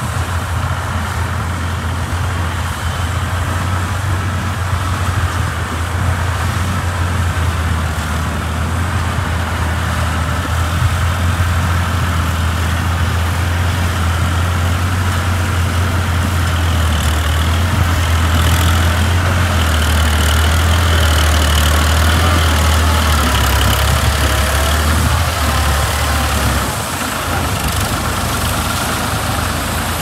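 Diesel engine of a New Holland tractor towing a trailer, running steadily with a low drone that grows louder as the tractor nears and drops back a little near the end.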